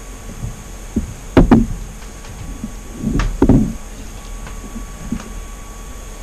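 Several dull knocks and bumps, loudest in two clusters about a second and a half and three seconds in, over a steady background hum.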